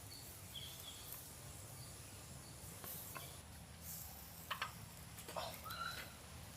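Faint outdoor ambience: a steady high insect drone, with a few faint short clicks and a brief chirp a little past the middle.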